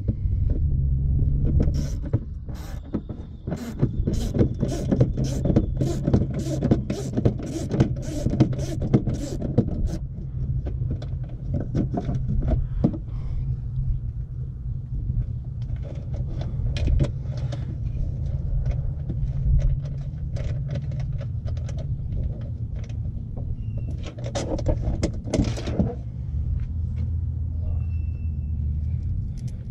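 A hand ratchet on a long extension clicking in an even run of about two to three clicks a second, stopping about ten seconds in, over a steady low rumble.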